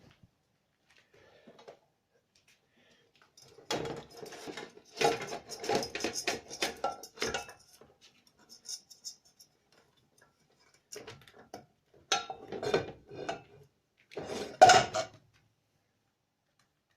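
Dishes and cutlery clinking and knocking as they are taken out and set down, in three bursts: about four seconds in, again around eleven seconds, and a loudest one near fifteen seconds.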